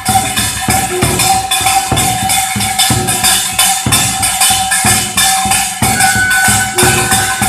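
Music with steady drum strokes, about two to three a second, under a long held high tone and a jingling shimmer of small percussion.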